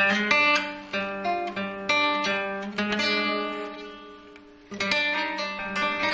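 Music of plucked guitar notes, ringing and overlapping, that die down to a lull just after the middle and start up again about a second from the end.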